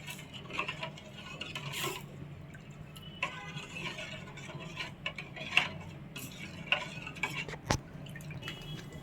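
A spoon clinking and scraping against a bowl in irregular short knocks while salt and chilli powder are spooned and stirred into flour, over a steady low hum.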